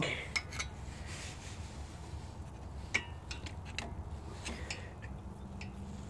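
Screwdriver levering against a VF Commodore's front brake caliper and pad, pushing the caliper piston back: a few faint metallic clicks and scrapes, the clearest about three seconds in.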